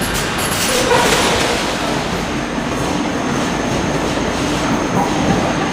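Loud, steady machinery noise in a steel forge shop around hydraulic forging hammers, with a low hum and a faint high whine, and no distinct hammer blows.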